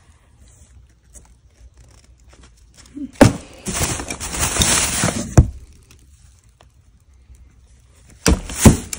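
Hands rummaging through a cardboard box of dolls. There are about two seconds of rustling and crinkling with sharp knocks starting about three seconds in, then a few more knocks near the end.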